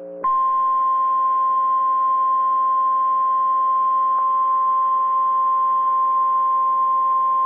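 Weather radio warning alarm tone: a single steady high tone, switching on a moment in and held unbroken, the alert signal that announces a tornado warning.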